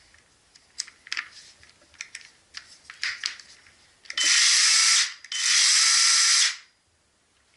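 Makita DUC302Z cordless chainsaw handled with a few clicks, then run twice in short bursts, each starting and stopping abruptly with a steady whirr of motor and chain, the second burst a little longer.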